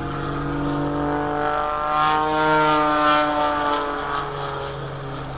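Single-engine propeller aerobatic plane droning overhead through a dive, its engine pitch rising and then falling back, loudest about halfway through.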